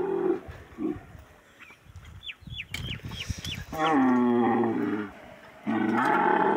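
Dromedary camel bellowing: a call tails off just after the start, then two long, loud, deep calls come about four and six seconds in, the first falling in pitch as it starts.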